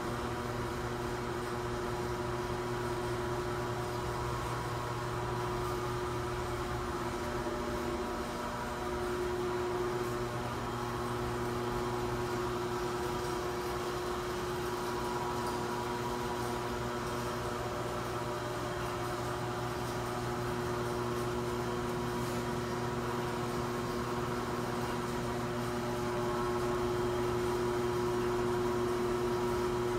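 Large electric shop fans running with a steady hum and a few steady droning tones; one of the tones drops out briefly about eight seconds in.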